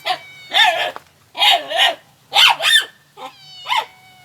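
A dog giving about four short, high-pitched yipping barks roughly a second apart, with a thin whine between some of them.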